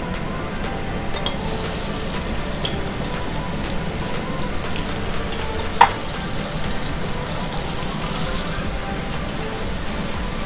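Turmeric-marinated seafood pieces frying in hot oil in a wok, a steady sizzle as they are stirred. There is one sharp knock about halfway through.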